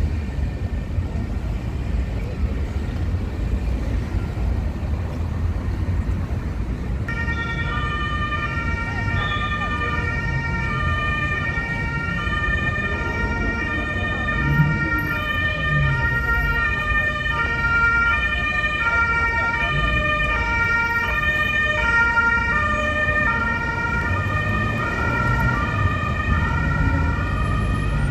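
Emergency vehicle siren sounding an alternating two-tone wail that switches on about a quarter of the way in and keeps going, over steady street traffic noise.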